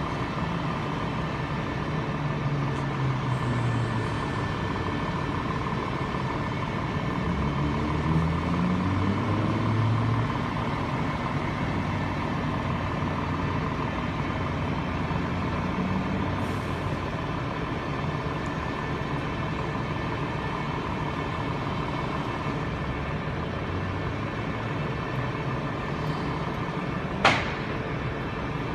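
Heavy diesel engines of buses and a lorry running with a steady drone. The engine note rises and falls over the first ten seconds, and a short, sharp hiss of air comes near the end.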